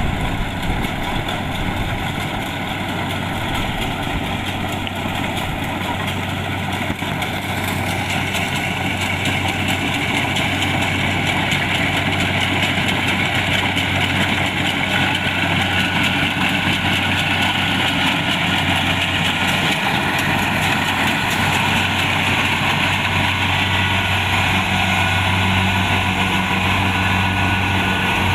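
Kubota DC-70 Plus rice combine harvester running steadily, a continuous engine hum under a wide band of machine noise. About eight seconds in, the higher-pitched part of the noise grows louder.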